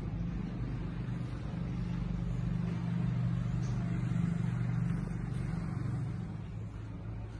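A motor vehicle's engine hums steadily, growing louder to about four seconds in and then fading, over an even hiss of rain.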